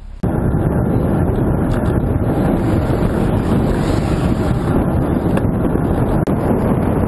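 Loud, steady wind buffeting the microphone of a bicycle-mounted camera while riding, a dense rushing noise that starts abruptly just after the beginning and drowns out any road or traffic sound.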